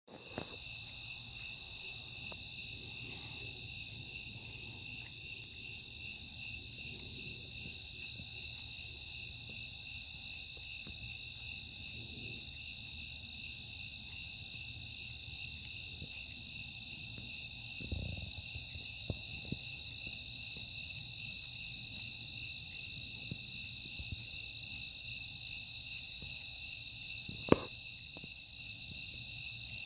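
Chorus of night insects such as crickets, trilling steadily in several high pitches over a low background hum. A brief low thump sounds a little past halfway and a single sharp click near the end.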